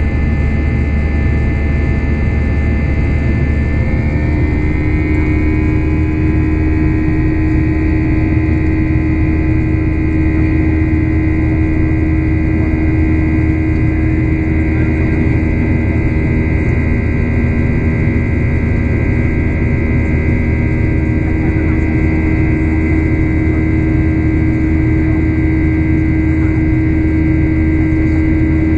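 Boeing 737-800 cabin noise in the climb after takeoff: the CFM56-7B turbofan engines running at climb power as a loud, steady low drone with several steady whining tones, heard from a window seat beside the engine. The engine tones shift in pitch about four seconds in, then hold steady.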